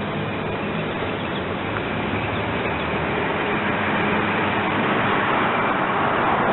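Freight train's ES44AC-H diesel locomotives running with a low engine hum over a steady rumble of wheels and rail, slowly growing louder.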